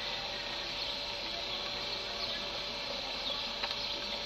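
Open countryside ambience: a steady high hiss with a few short, high bird chirps now and then.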